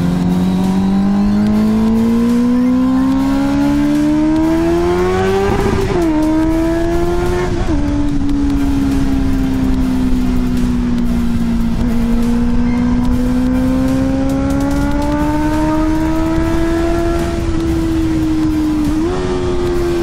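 Honda CBR650F inline-four motorcycle engine through an Akrapovic full titanium exhaust, accelerating with its pitch climbing, cut by two quick upshifts about six and seven and a half seconds in, then cruising with the pitch slowly falling and rising again. Steady wind rush underneath.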